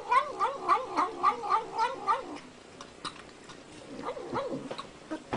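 Domestic cat mumbling a quick run of short, wavering calls, a "nom nom nom", about three a second. It stops about two seconds in, with a few fainter calls near four seconds.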